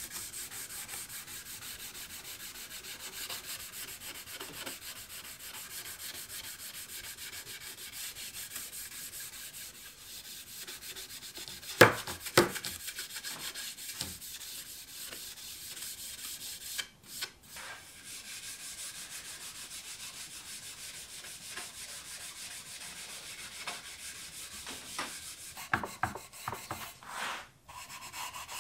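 A gloved hand rubbing over a small wooden board in fast, steady back-and-forth strokes, a continuous hissing scrape of pad or abrasive on wood. Two sharp wooden knocks about twelve seconds in, and a run of taps and clicks near the end as the wood is handled.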